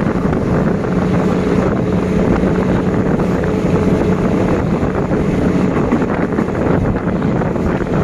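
Passenger train running at speed, heard from an open carriage window: a steady rumble of wheels on track under a constant low hum, with wind buffeting the microphone.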